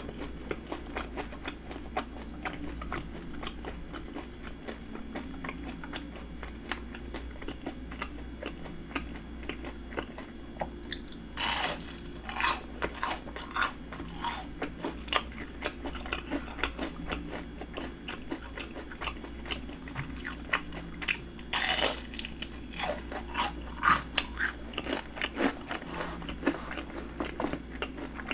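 Close-miked chewing of crunchy panko-fried shrimp, a steady run of small crackles broken by sharp crunching bites, the loudest about eleven seconds in and again about twenty-two seconds in.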